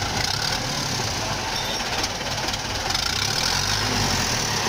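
Four-cylinder diesel engine of a FIAT 640 tractor running steadily, the tractor stuck in deep mud and working to pull free.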